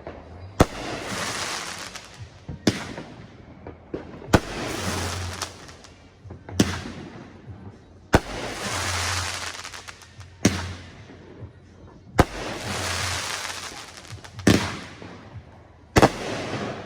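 Aerial fireworks going off in a steady sequence: sharp bangs about every two seconds, and every other bang is followed by a crackling hiss that lasts over a second.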